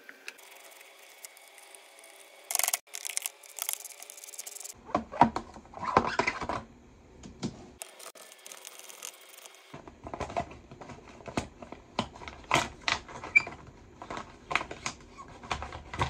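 Clicks, knocks and scrapes of dirt bike parts and hand tools being handled in a small workshop, in short clips with abrupt cuts between them. A faint steady hum comes first, and the handling noises start about five seconds in.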